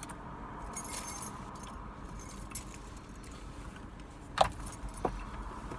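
Steady low hum of a car interior with light rustling and clinking, and two sharp clicks, the louder about four and a half seconds in.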